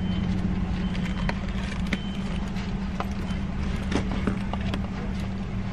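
Steady low hum of a car idling, heard from inside the cabin, with a few light clicks and taps as things are handled by the console.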